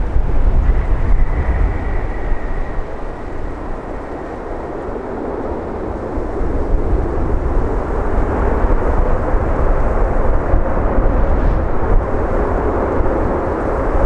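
JAL Boeing 787 airliner landing and rolling out: jet engine noise over a deep rumble, with a faint high whine about a second in. The engine noise dips, then swells again from about six seconds in.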